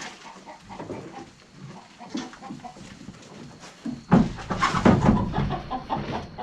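Farm animals, goats among them, crowding and jostling around a feed bucket, with a loud bout of knocking and scuffling from about four seconds in.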